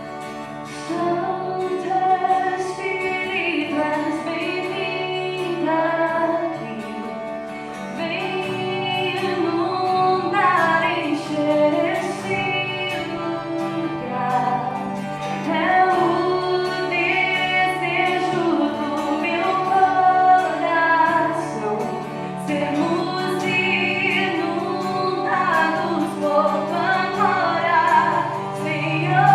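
Christian worship band performing a song: a woman's voice singing the melody over instrumental accompaniment.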